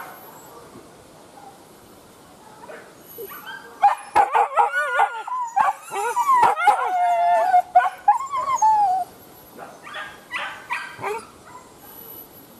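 Wild boar hunting dogs yelping and whining. About four seconds in comes a burst of quick yips that runs into a long wavering howl, followed by a few short barks near the end.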